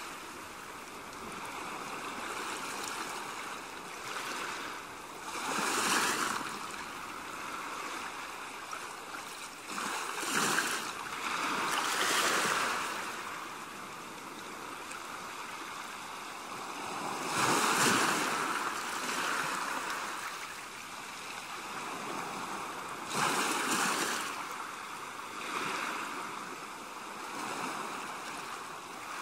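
Small sea waves breaking and washing on the shore, the wash swelling and fading every few seconds.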